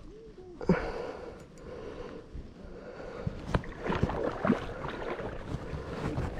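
Handling noise of a spinning rod's cork grip and reel rubbing against the camera, with a sharp knock about a second in, over the slosh of river water around a wading angler.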